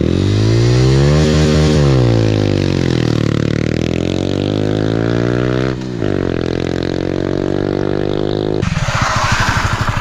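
Honda Wave 125i's single-cylinder engine revving hard through a clutch-drop launch on gravel, the rear road tyre spinning. The pitch climbs, falls back, then holds high again after a brief drop about six seconds in. Near the end a rushing noise takes over.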